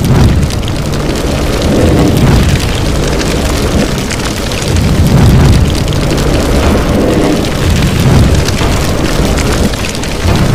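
Loud sound-effect track of an animated intro: a continuous fiery rush with deep explosive booms, swelling and easing several times.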